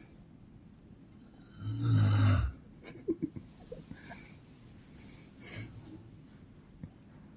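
A woman snoring: one loud, low snore lasting about a second, about two seconds in. It is followed by quieter breathing with a few small clicks.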